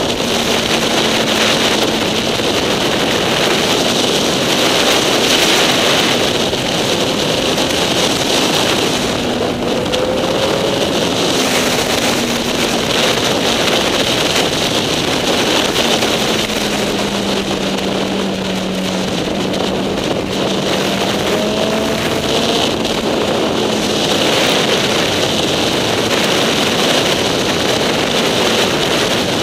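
Heavy wind rush over a motorcycle-mounted camera at road speed, with the motorcycle's engine note underneath, dropping and rising again in pitch with the throttle partway through.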